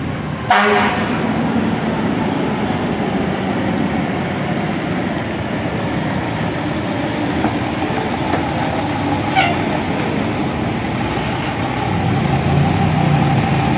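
Fire engine's diesel engine running as the pumper pulls through an intersection amid street traffic, its low hum growing louder near the end as it passes close. A sharp knock sounds about half a second in.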